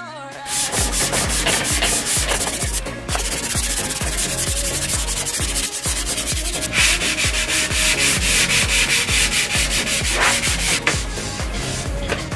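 Hand sanding a Western Red Cedar VJ lining board with a sanding block: quick, rhythmic back-and-forth rasping strokes of abrasive on wood.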